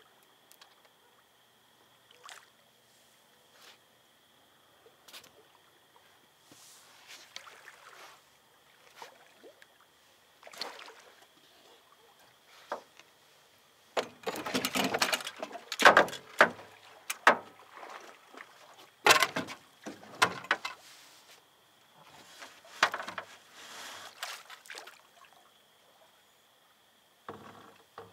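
A hooked catfish being landed at a boat's side: splashing and sloshing water with knocks against the boat, in scattered bursts that are loudest about halfway through. A faint steady high whine runs underneath.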